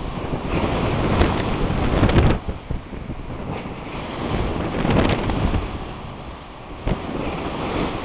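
Wind buffeting the microphone over the rush of white water along a sailing ship's hull as she runs through heavy swell. It is loudest in the first two seconds, eases, then swells again around five seconds.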